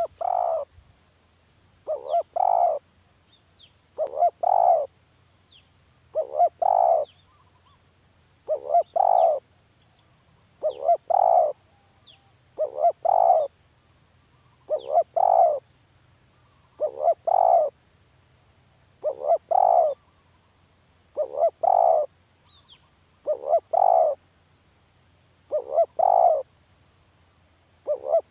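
Spotted dove cooing: a short phrase of a brief lead note and one or two longer coos, repeated steadily about every two seconds. Faint high chirps of other small birds come in between.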